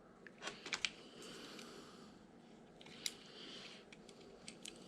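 Faint scattered clicks and light taps of small parts being handled while working on a 1/24-scale RC crawler, over a low room hiss.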